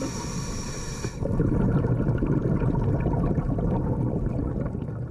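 Muffled underwater rumble with crackling, picked up by a GoPro Hero 5 held in the water during a scuba dive. The tail of a music track fades out about a second in.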